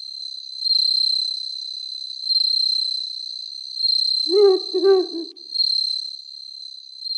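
Night ambience of crickets chirping, a continuous high trill that swells and fades every second or so, with an owl hooting twice about four seconds in.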